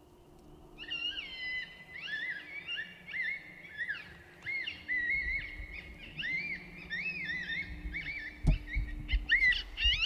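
Recorded coyote howls and yips played from an electronic predator caller: a quick run of short wavering calls that rise and fall, starting about a second in. A few low thumps come near the end.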